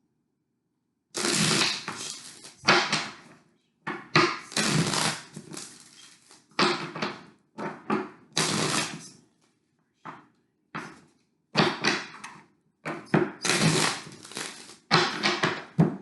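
Tarot cards being handled: a series of short papery shuffling and slapping bursts, each dying away within a second, as the deck is shuffled and cards are set down on the table.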